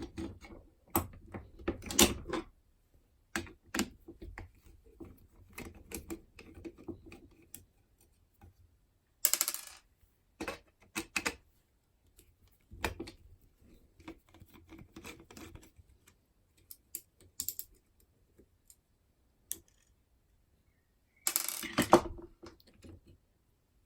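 Small metal clicks and clinks of a 5-lever mortice lock being handled and taken apart. Two longer metallic scrapes come about nine seconds in and again near the end.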